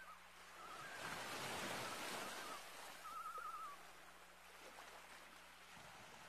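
Common loons giving distant quavering tremolo calls, several short wavering bursts with a longer one about three seconds in. Soft water lapping swells and fades beneath them.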